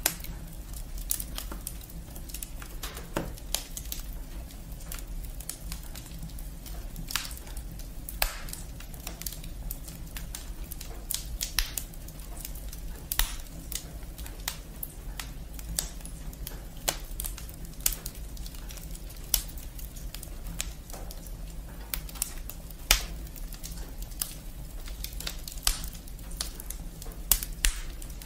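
Wood fire burning in a fireplace, the logs and twigs crackling with irregular sharp pops and snaps, several a second, over a steady low background noise.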